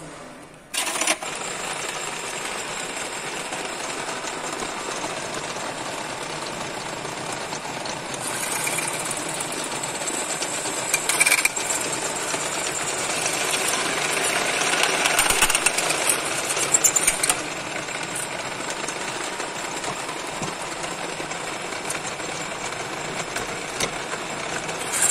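Drill press motor running and its twist bit drilling into a thin slotted metal disc clamped in a vise. The machine starts about a second in, and the cutting is louder and scratchier in the middle stretch before settling back to a steady run.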